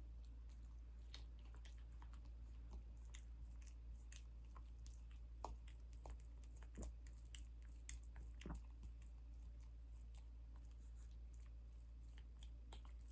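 Mini dachshund licking and smacking at honey: faint, irregular mouth clicks and smacks, a few louder ones through the middle, over a low steady hum.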